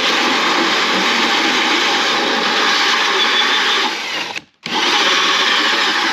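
Power drill running a bi-metal Hole Dozer hole saw, cutting steadily into a wooden board with its pilot bit seated in a pre-drilled pilot hole. It stops for a moment just past four seconds in, then starts cutting again.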